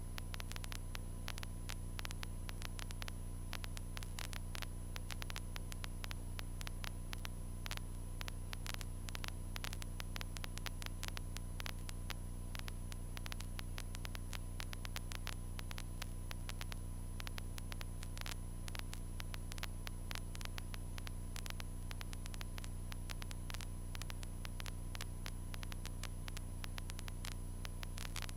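Faint steady electrical hum with dense crackling static from a light aircraft's intercom audio line, unchanging throughout.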